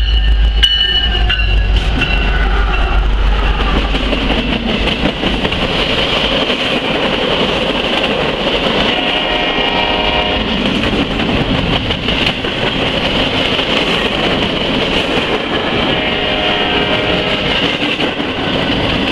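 Freight train passing close: a BNSF diesel-electric locomotive's heavy engine rumble for the first few seconds, then empty intermodal well cars rolling by with a steady rush of steel wheels on rail. Twice, around the middle and near the end, a pitched ringing whine rises over the rolling noise.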